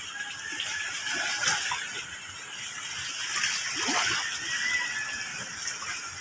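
Shallow seawater sloshing and splashing as people wade and reach down with their hands into the water to find and lift a submerged crab trap.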